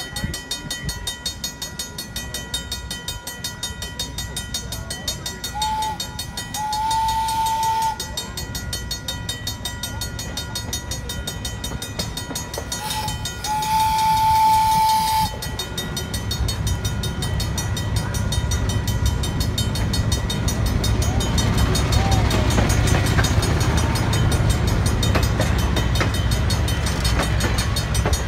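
Steam locomotive whistle sounding twice, each time a short toot followed by a long single-tone blast, over a level-crossing bell ringing steadily. About halfway through, the rumble and clatter of the train's wheels builds as the passenger coaches roll past.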